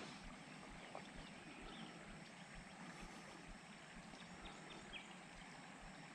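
Near silence: faint outdoor stream-side ambience with a few faint, short high chirps.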